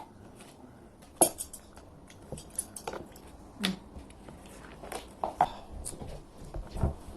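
Scattered clinks and knocks of cutlery and dishes at a table while eating, the sharpest about a second in.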